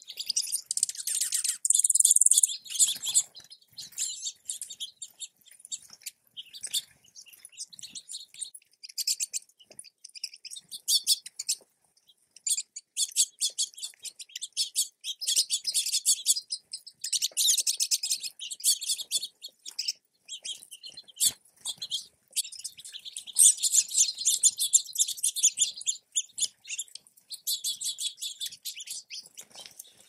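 Small songbirds chirping and twittering in quick, high-pitched runs of a second or two, broken by short pauses.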